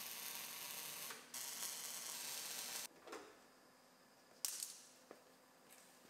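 MIG welder crackling through two welds, each about a second and a half long, then a few short crackling tacks as backing plates are welded into the pillars.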